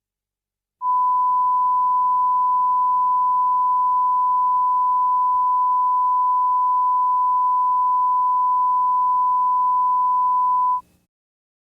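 A single steady pure tone, the broadcast's closing tone at the end of an emergency alert message. It starts about a second in and cuts off sharply about ten seconds later, with a faint hum beneath it.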